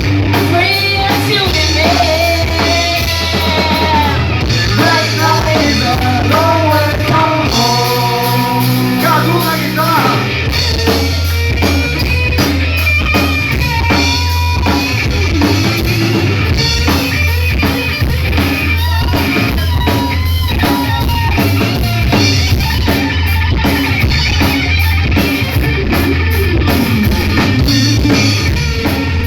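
Live rock band playing: a bending melodic lead over bass and drums, a held chord around eight seconds in with the low end dropping away, then the full band comes back in with a driving drum beat.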